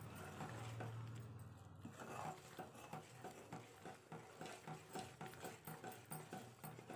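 Steel spoon stirring thick, sticky Mysore pak mixture of gram flour, sugar syrup and ghee in an aluminium pan, a faint, regular stroke about twice a second. A low hum runs under it for the first second or so.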